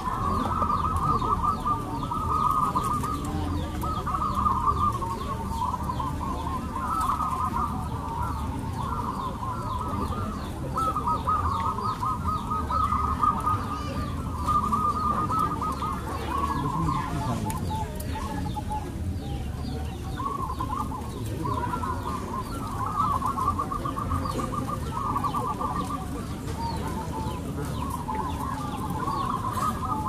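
Zebra doves (perkutut) cooing in a chorus: rapid trilled cooing phrases overlap with hardly a break, over a steady low background rumble.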